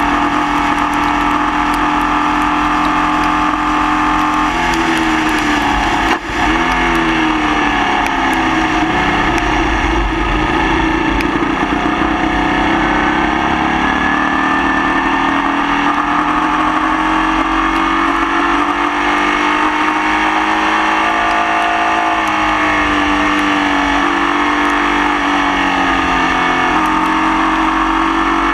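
Formula Vee race car's air-cooled Volkswagen flat-four engine at racing speed. Its pitch climbs slowly under load and drops several times, with a brief sharp cut about six seconds in. The engine has a misfire that lasted the whole race.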